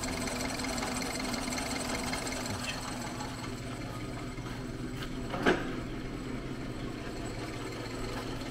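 Clausing metal lathe running steadily on its three-phase inverter-duty motor under VFD drive, with a steady hum and a little rattle from the clutch in the belt drive. One short clunk about five and a half seconds in.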